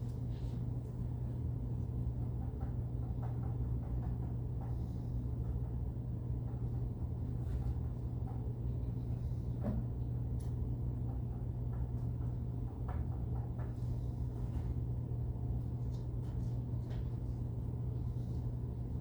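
Steady low hum of room tone, with a few faint clicks and knocks now and then.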